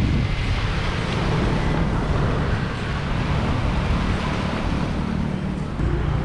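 Wind buffeting the microphone over small waves washing against a rocky shore, with a steady low hum underneath.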